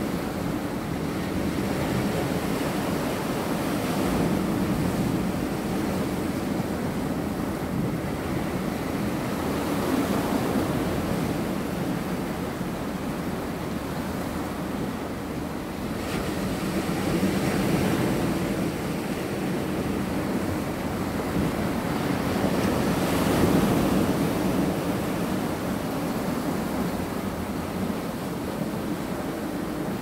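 Sea waves washing in and breaking over a flat, layered rock shore: a continuous surf wash that swells every six seconds or so as each wave comes in.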